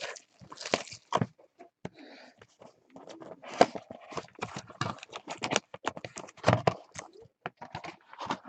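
Hands handling a sealed Five Star baseball card box and its foil-wrapped pack: irregular clicks and taps of the cardboard box, with crinkling of the foil wrapper.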